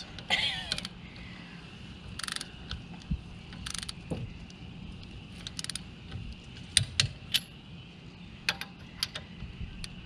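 Click-type torque wrench ratcheting in short strokes on a car's wheel lug nuts, with sharp metallic clicks spaced unevenly; the lugs are being tightened to a 95 ft-lb setting.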